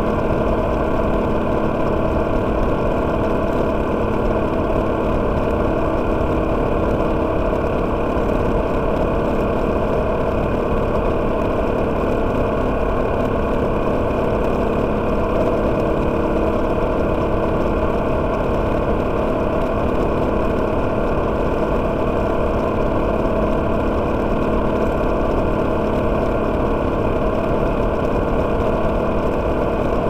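Freshly overhauled motorcycle engine running at a steady cruising speed, heard from on board inside a road tunnel, its note holding one pitch over a low rumble.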